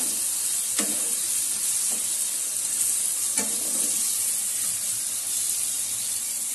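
Chopped green capsicum frying in oil in a nonstick pan, a steady sizzle. A wooden spatula stirs it, scraping against the pan now and then.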